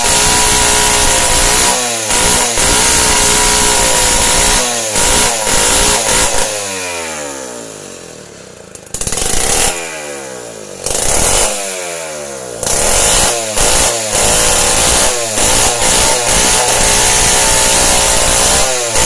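Two-stroke chainsaw cutting wooden poles, running at high revs. About two-thirds of the way in it eases back to idle twice and revs up again, with short throttle blips near the end.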